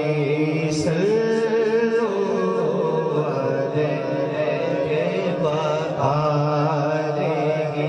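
Naat recitation: a male lead singer sings a long, wavering melodic line through a microphone and PA system, over a steady held drone from the backing singers.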